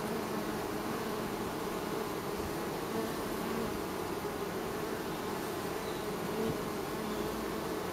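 Steady dense buzzing of a mass of honey bees crowding and flying at a beehive entrance, close to the microphone.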